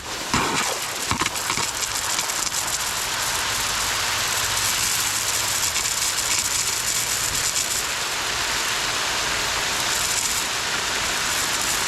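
Lawn irrigation system running with the water just switched on: a steady hiss of spraying water, with a few knocks in the first second.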